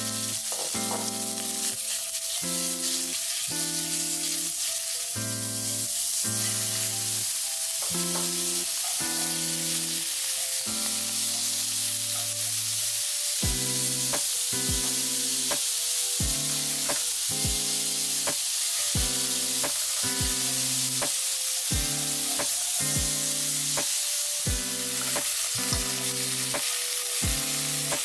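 Pork slices and shrimp sizzling steadily in hot oil in a stainless steel wok, with the scrape of chopsticks stirring them. A light music track with a repeating low melody plays underneath.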